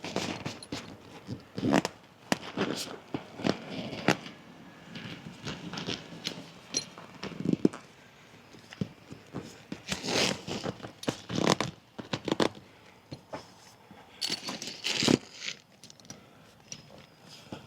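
Tent fabric rustling and scraping as a pop-up shower tent is folded and packed away, with irregular clicks and knocks from its frame and fittings.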